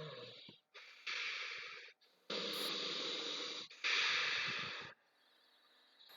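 A person breathing heavily: four long, hissing breaths of about a second each, then a pause near the end.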